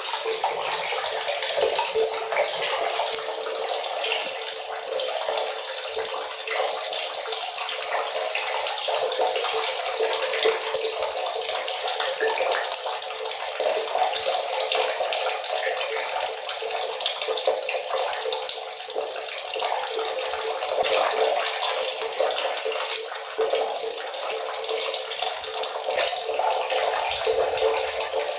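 Water running steadily from a tap, a constant stream falling and splashing, with little deep sound in it.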